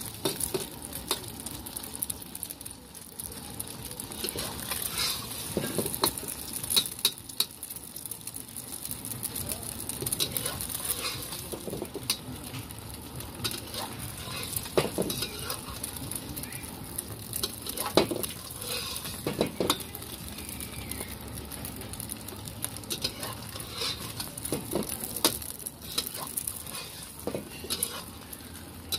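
Thai-style egg omelette frying in hot oil in a wok, sizzling steadily, with a metal spatula scraping and tapping against the pan now and then, most sharply about eighteen seconds in.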